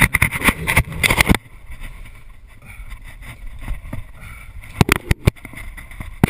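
Scraping, rubbing and knocking of a person squeezing and climbing down between wooden floorboards and scaffolding, with a burst of loud rubbing in the first second and a half and a few sharp knocks about five seconds in.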